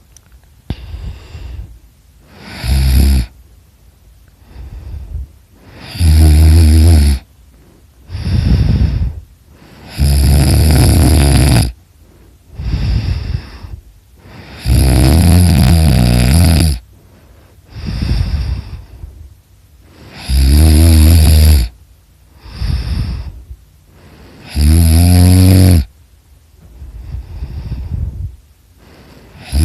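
A person snoring in deep sleep: loud, rattling snores about every four to five seconds, each separated by a quieter breath sound.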